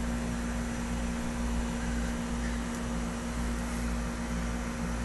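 Steady mechanical hum with a constant low tone, unchanging throughout.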